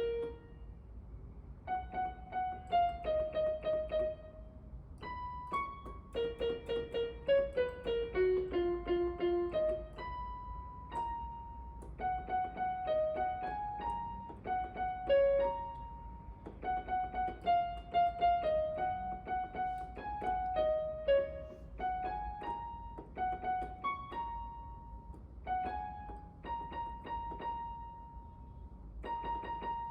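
Background piano music: a simple melody of single struck notes.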